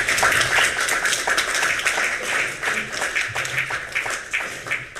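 An audience applauding: many hands clapping together, loud at first and dying away near the end.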